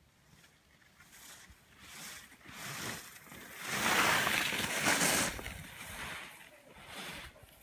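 Skis carving over packed snow: a run of scraping swishes, one per turn, that builds to the loudest and longest about four seconds in, then trails off in shorter swishes.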